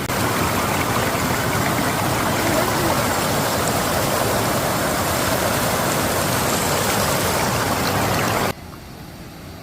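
Steady rush of falling water from a waterfall. It cuts off abruptly about eight and a half seconds in, leaving a much quieter background.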